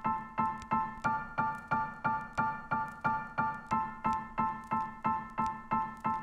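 Background music: a piano-like keyboard repeating the same chord in steady even pulses, about three times a second.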